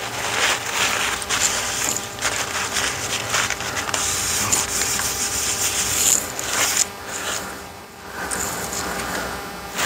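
Irregular rubbing and scraping as things are handled and worked on at a workbench, with a short lull about eight seconds in.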